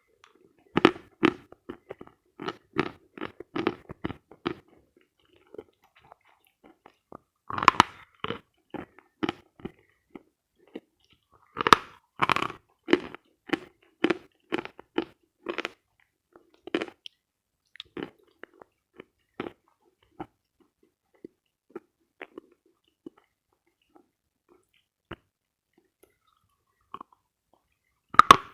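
Dry, dense edible chalk bitten and chewed close to the microphone. There are three loud bites, each followed by a run of crisp crunches about two a second that thin out. Scattered faint crunches follow, and a fresh bite comes at the very end.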